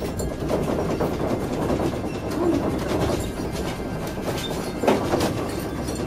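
Steady rumbling with rapid, continuous rattling and clattering of objects in a room shaken by an earthquake, with a sharper knock about five seconds in.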